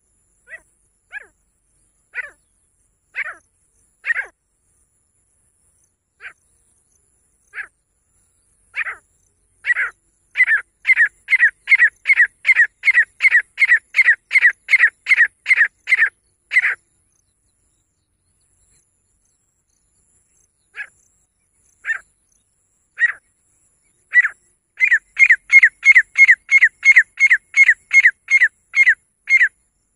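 Female grey francolin calling: single high notes a second or so apart that quicken into a loud run of about two notes a second, which stops about halfway through. After a pause of a few seconds it starts again with spaced notes that build into a second fast run, lasting almost to the end.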